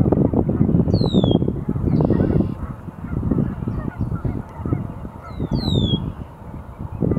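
A dense, steady chorus of waterfowl calling from the marsh, with a bird's short, high, falling whistle twice, about a second in and again near the end.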